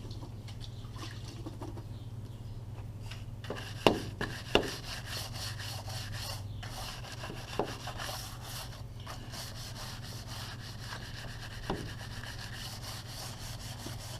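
Stiff scrub brush scrubbing caked dirt and cleaner out of a sliding door's floor track in rapid back-and-forth strokes, with a few sharp knocks of the brush against the track, the loudest about four seconds in.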